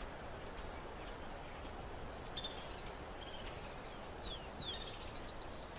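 Small birds chirping high and thin over faint outdoor ambience. A few separate chirps and falling notes come first, then a quick run of repeated notes near the end.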